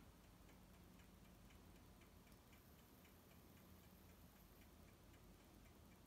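Faint, regular ticking, about two ticks a second, over a low background hum.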